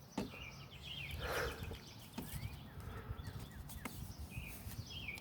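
Small birds chirping outdoors in short, quick, down-slurred chirps, with a brief rustling noise about a second in and a few light clicks.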